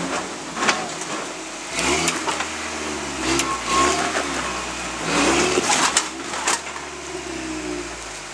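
Off-road pickup truck's engine working in repeated rising and falling revs as it crawls over a rock ledge, with a few sharp knocks and scrapes of the truck against the rock.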